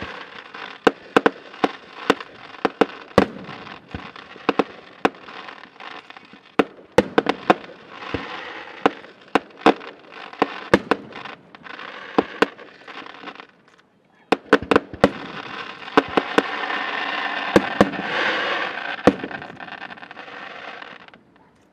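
Fireworks display: a fast string of sharp bangs from bursting shells over a crackling hiss. From about 15 seconds in, a dense crackling shower builds and gets louder, then cuts off suddenly near the end.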